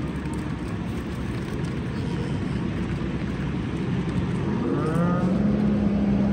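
A Jersey heifer moos once, one long call that rises and then holds level, starting about five seconds in, over a steady low rumble.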